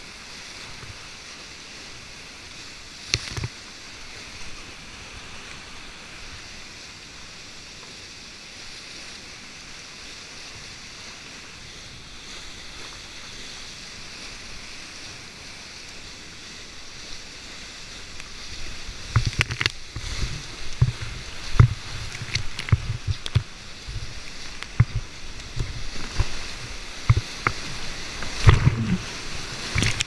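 Rushing whitewater of the Nantahala River at high flow, heard from the kayak. From about two-thirds of the way through, frequent sharp slaps and knocks of water against the boat come over a louder rushing as the kayak drops into heavy rapids.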